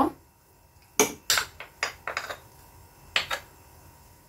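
A wooden spatula knocking and scraping against a stainless-steel stand-mixer bowl as soft butter is scraped off into it: a few sharp taps about a second in, a quick cluster around two seconds, and two more just after three seconds.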